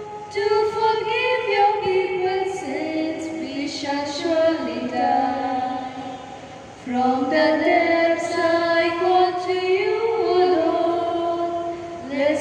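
Slow hymn sung by female voices, with long held notes and a short pause for breath about six seconds in.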